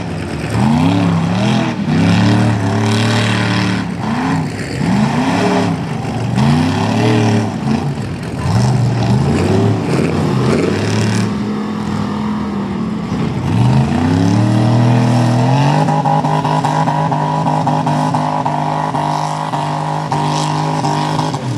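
Mud-bog truck engine revving up and down about once a second, then climbing about fourteen seconds in and held at high revs.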